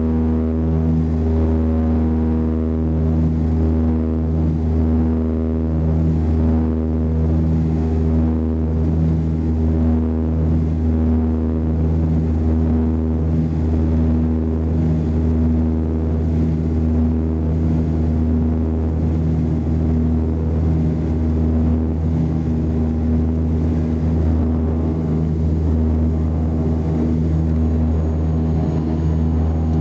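ATR-72-300 turboprop engines and propellers running at steady high power, heard from inside the passenger cabin. The sound is a deep, even drone with a propeller hum whose tone swells and fades slowly.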